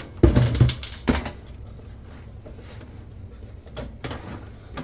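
Metal and plastic parts of a desktop computer being pushed and worked loose by hand: a cluster of sharp knocks and clicks in the first second, then a few lighter taps near the end.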